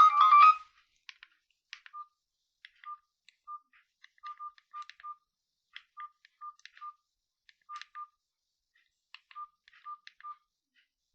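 A Maxvi C15 button phone's ringtone melody cutting off about half a second in, followed by keypad presses: sharp button clicks, each with a short single-pitch key beep, about fifteen of them spread irregularly over the rest.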